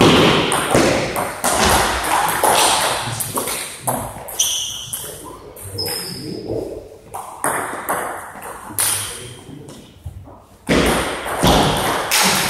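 Table tennis ball clicking back and forth off the bats and table in quick rally hits, echoing in a large hall. The hits stop after about two seconds, and a new rally starts near the end.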